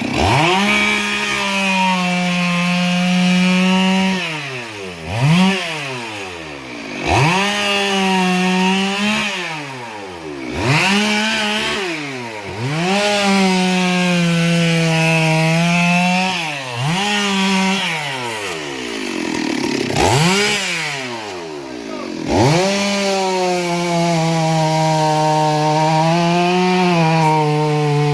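Two-stroke chainsaw cutting wood: it runs steady under load, then repeatedly drops toward idle and revs back up as the throttle is let off and squeezed again.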